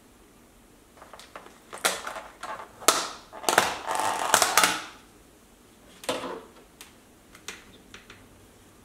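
Clear plastic lid being pried off a plastic takeout bowl, crackling and clicking, loudest about halfway through. A few lighter plastic clicks follow.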